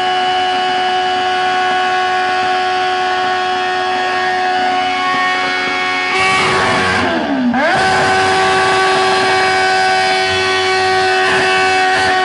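Motorcycle engine held at a steady high rev. About seven seconds in, its pitch dips sharply and climbs straight back to the same high note.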